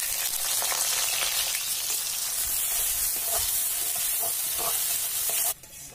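Thinly sliced onions hitting hot oil in a wide aluminium kadai and frying with a steady sizzle as they are stirred with a spatula, the first stage of making crisp fried onions (birista). The sizzle cuts off suddenly near the end.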